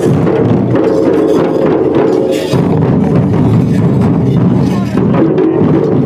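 Loud drum-led folk music for a Gondi wedding line dance. Fast, dense drum strokes keep going without a break, with a steady pitched tone held over them.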